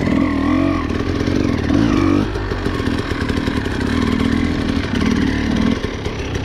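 Dirt bike engine running under load, its note rising and falling as the throttle is worked over rough ground, with some rattling from the bike.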